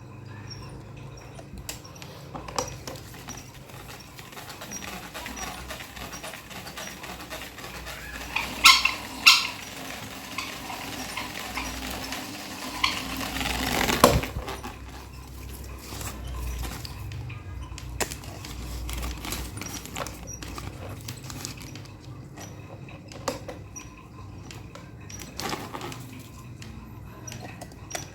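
Electric propeller fan running with a steady low hum, a faint regular tick and scattered light clicks and clatters. Two loud sharp sounds come close together about nine seconds in, and a sharp knock follows a few seconds later.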